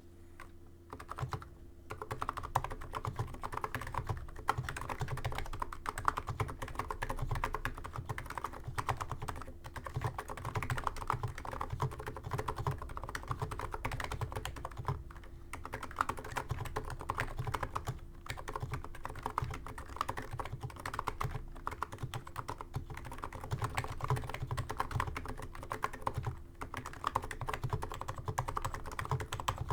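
Niz Micro 82 keyboard with stock 35 g electro-capacitive switches being typed on continuously: a rapid, dense run of keystrokes, broken by a few brief pauses.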